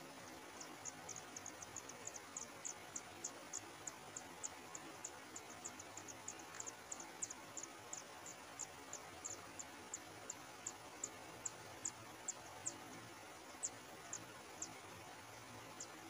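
Kacer air nestlings begging: a rapid series of short, thin, high-pitched chirps while being fed, slowing to about two a second and thinning out near the end, over a faint steady hiss.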